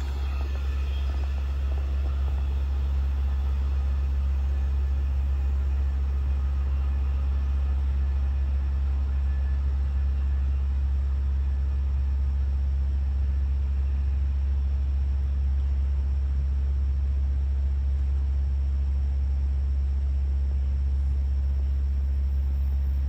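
A steady low rumble, unchanging in level throughout. Over it, the fading rail noise of a departing passenger train dies away in the first second or two.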